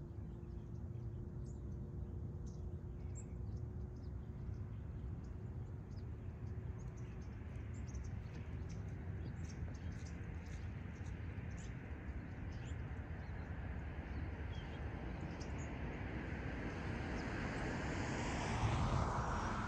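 Small birds chirping in short high notes over a steady low rumble, with a faint steady hum for the first half. A rush of noise builds over the last few seconds and is loudest near the end.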